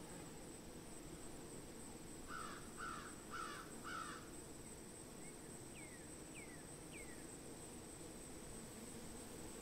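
A crow cawing four times in quick succession, followed by three short falling chirps, over a steady high-pitched thin tone.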